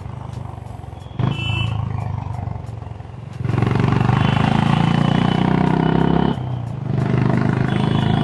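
Honda H'ness CB350's single-cylinder engine and exhaust running on the move, growing much louder about three seconds in as the throttle opens, easing off briefly and picking up again. A short high tone sounds about a second in.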